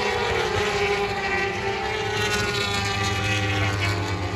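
Superbike race motorcycles running at high revs down the track straight, their engine note falling slowly in pitch as they pass.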